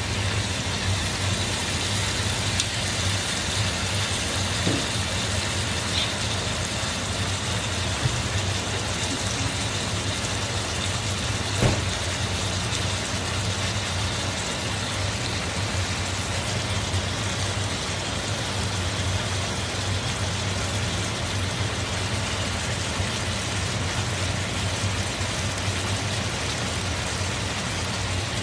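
Sliced boar meat and asparagus sizzling steadily in a hot frying pan, with a constant low hum underneath and a couple of faint clicks.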